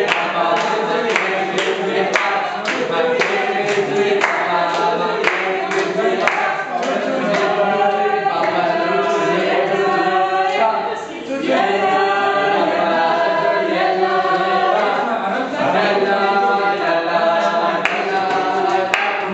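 A mixed group of young men and women singing a song together unaccompanied, with hand claps keeping the beat at about two a second for the first several seconds and again near the end.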